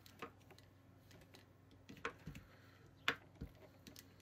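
A handful of light, scattered plastic clicks and taps from a small plastic rolling pin working modelling clay flat on a glass tabletop, the sharpest about three seconds in.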